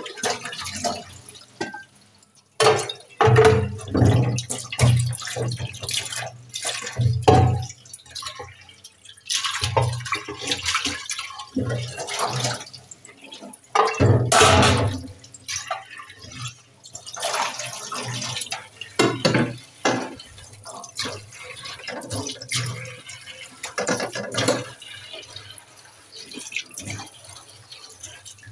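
Tap water running and splashing in an aluminium pressure-cooker pot as it is rinsed and scrubbed by hand in a stainless steel sink, with irregular knocks and bumps of the pot against the sink. Near the end the water splashes into the empty sink as the basin is rinsed.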